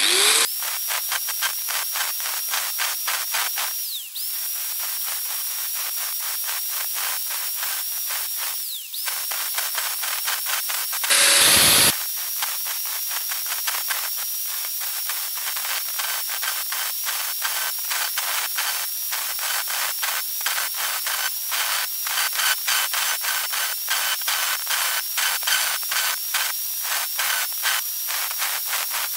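Hand-held angle grinder running with a high steady whine, its disc grinding the teeth of a steel saw blade to points in quick, short rasping bites. Twice the whine drops in pitch as the motor slows, then comes back up to speed. Partway through there is a louder harsh grind lasting about a second.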